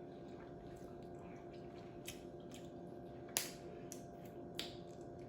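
Eating sounds from a seafood boil mukbang: a few short, wet mouth clicks and smacks, the loudest about three seconds in, over a faint steady hum.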